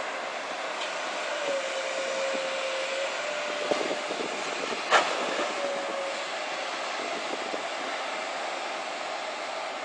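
Long-reach Komatsu excavator running steadily as it digs underwater, its engine and hydraulics making a continuous drone with a whine that dips and rises slightly in pitch. A short clatter and then a single sharp knock come about four to five seconds in.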